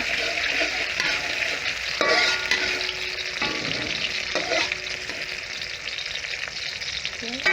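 Garlic frying in hot oil in a pan, a steady sizzle, with a utensil stirring and scraping against the pan now and then.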